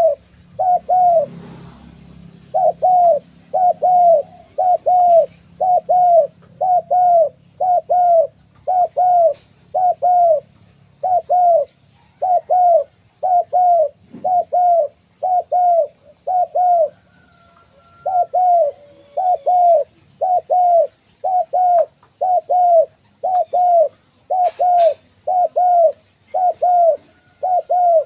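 Spotted doves cooing: a long, steady run of short, arched coo notes, mostly in pairs, a little under two a second, with one brief break about two-thirds of the way through.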